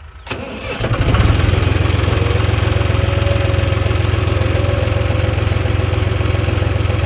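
Tractor diesel engine starting with a sudden jolt less than a second in, then running steady and loud.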